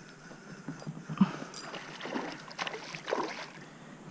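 Movement in a kayak while a hooked fish is being fought: a sharp knock against the hull about a second in, then a few irregular sloshing, rubbing sounds.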